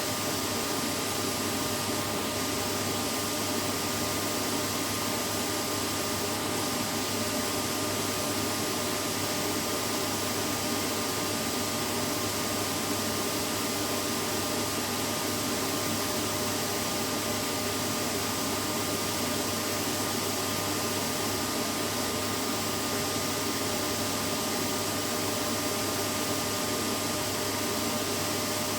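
Vacuum cleaner running steadily, a constant rushing noise with a faint hum of its motor and no change in speed.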